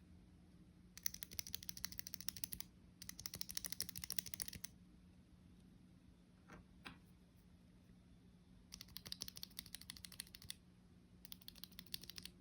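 Fast typing on a 60% mechanical keyboard fitted with Geon Raptor HE magnetic switches with L60 stems, a PC plate, Tofu60 Redux case and PBT keycaps: four runs of rapid keystrokes, two close together, then a pause, then two more.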